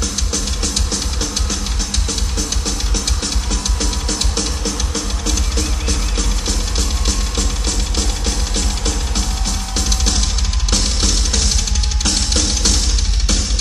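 Music led by a drum kit playing fast bass drum and snare strokes, with cymbals brightening about eleven seconds in.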